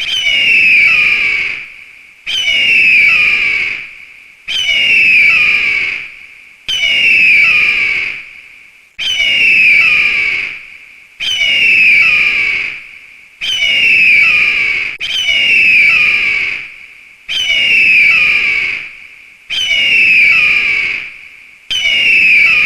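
Eagle screech: a harsh, high scream that slides down in pitch and fades, repeated about every two seconds as the same call looped over and over.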